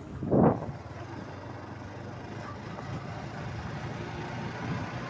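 Motorcycle engine running with road and wind noise while riding, a steady low rumble that slowly grows louder. A brief louder burst comes about half a second in.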